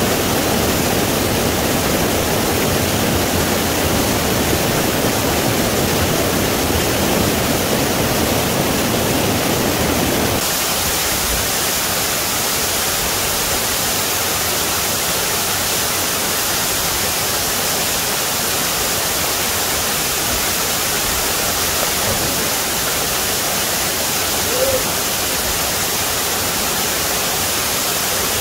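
Mountain stream water rushing over boulders into a pool, a steady full rush. About ten seconds in it changes to a waterfall pouring into a plunge pool, a thinner, hissier steady rush.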